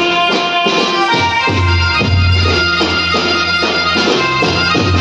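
Instrumental Indian folk devotional music played live and loud: held, reedy melody notes over a steady drum beat, without singing.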